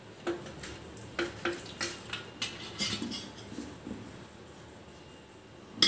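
A whole raw chicken being handled and rubbed with marinade on a stainless-steel tray: a run of light clicks and knocks against the metal over the first few seconds, then one sharper knock near the end.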